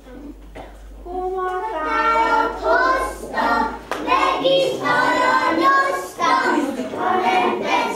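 A group of young children singing a song together, starting about a second in.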